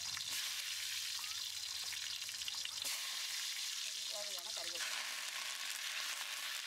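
Hot groundnut oil sizzling in a large aluminium pot as garlic cloves fry in it, a steady crackling hiss that grows louder about three seconds in as green leaves go into the oil.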